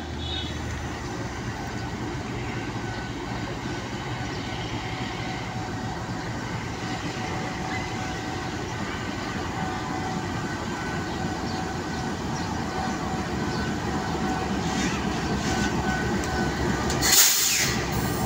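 GE U20C (GEU-20) diesel-electric locomotive pulling an express passenger train away from the station, its engine running and growing steadily louder as it approaches. A brief loud hiss comes near the end as the locomotive draws alongside.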